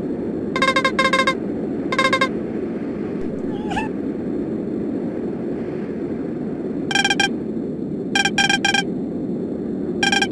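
Steady low rushing noise of a snowstorm wind effect. Short, high, even-pitched beeps come over it in small groups: two quick ones, then one, later two, three and two. A brief wavering squeak sounds near four seconds.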